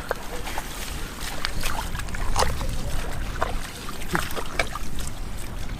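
Muddy shallow water sloshing and splashing in short, irregular splashes as hands work through it, over a low steady rumble.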